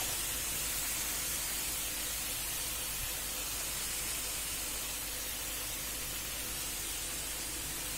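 Chicken leg pieces sizzling in a frying pan of fried onion, ginger and garlic paste masala: a steady hiss that fades slightly.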